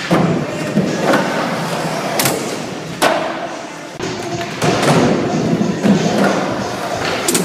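Skateboard wheels rolling over wooden ramps and a concrete floor, a continuous rushing noise broken by several sharp knocks and thuds of the board.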